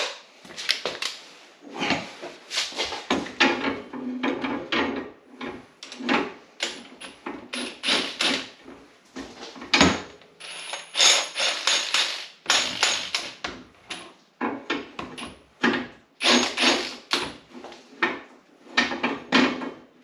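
Irregular sharp knocks and metallic scraping of a tool worked against the spring-preload adjuster ring of a Polaris Ranger 1000's front coilover shock, turned without a proper hook wrench.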